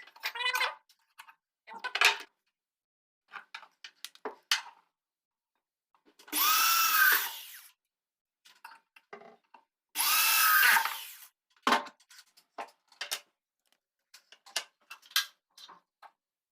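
Cordless drill driving screws into the wooden cupboard door, in two runs of about a second and a half, each speeding up and then slowing. Short knocks and clicks of handling come between the runs.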